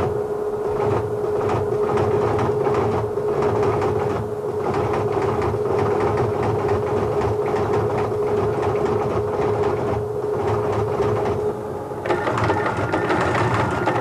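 TTY teleprinter clattering steadily as it types out a message, under a steady hum. About 12 seconds in the hum stops and a higher steady tone comes in.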